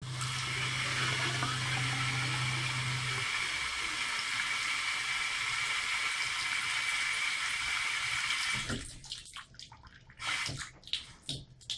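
Bathroom sink tap running steadily into a ceramic washbasin, then cutting off sharply about nine seconds in, leaving irregular splashes and trickles. A low steady hum runs underneath for the first three seconds.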